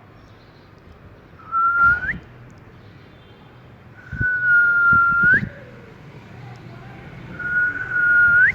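Ring-necked parrot whistling three times. Each whistle is a steady held note that flicks sharply upward at the end, the first short and the next two longer, with a few soft knocks around the second.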